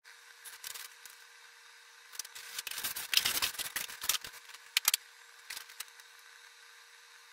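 Styrofoam packing blocks and particleboard desk panels being pulled out of a cardboard box: scraping and rustling for about two seconds, then a few sharp knocks as panels are handled and set down.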